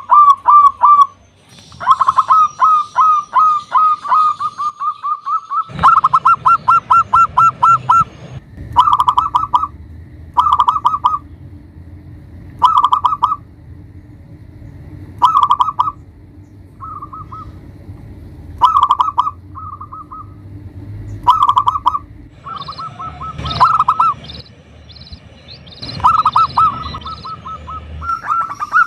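Zebra dove (perkutut) cooing in phrases of rapid, evenly repeated notes on much the same pitch. There are long runs near the start and again near the end, with short bursts every couple of seconds between them. A low steady hum lies underneath from about six seconds in.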